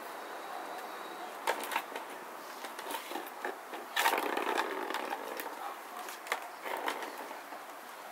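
A plastic ball rolling around the track of a plastic ball-track cat toy as a cat paws at it, with a scatter of sharp knocks, the loudest about four seconds in.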